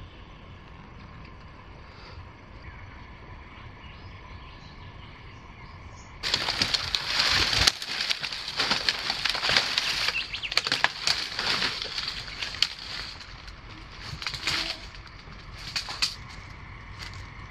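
Footsteps crunching and rustling through dry fallen palm fronds and leaf litter. The sound starts suddenly about six seconds in as a dense, loud crackle, then thins to a few separate rustles near the end as the steps move away.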